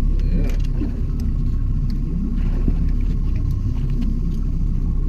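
Boat motor idling in neutral, a steady low rumble, with a few faint clicks from the landing net being handled.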